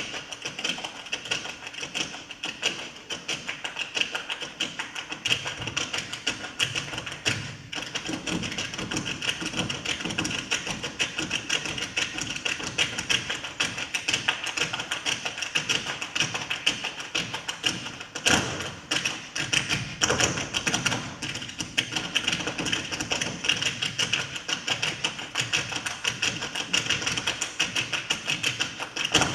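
Several dancers making the percussion themselves, with no accompanying music: rapid, dense, overlapping taps and thuds that run on without a break.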